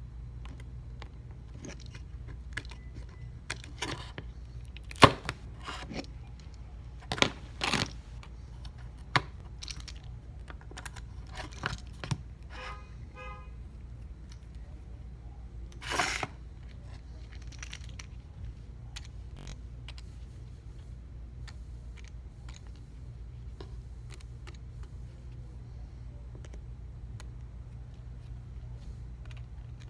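Small metal repair tools and phone parts clicking and tapping against each other and the work surface, scattered and irregular, over a steady low hum. The sharpest click comes about five seconds in, a short buzzy tone sounds around thirteen seconds, and a brief scrape follows around sixteen seconds.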